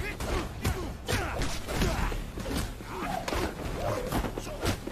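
Staged hand-to-hand fight: a quick run of sharp hits and swishes from punches and kicks, mixed with short grunts of effort.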